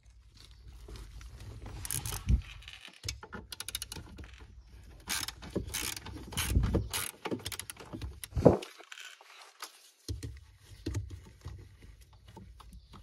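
Ratchet wrench clicking as the 10 mm nuts holding a control unit are undone, with a fast run of clicks about four seconds in and scattered knocks of metal and plastic parts, the loudest about eight and a half seconds in.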